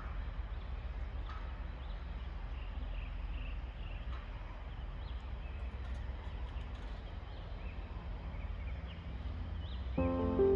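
Evening outdoor ambience: scattered short, high chirps of small birds over a low steady rumble. Music begins near the end.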